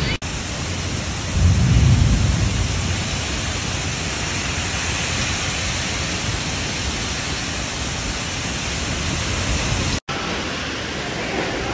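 Violent rainstorm with strong wind: a dense, steady rush of torrential rain and wind, with a louder low rumble about a second and a half in. The sound cuts out briefly twice, just after the start and about ten seconds in.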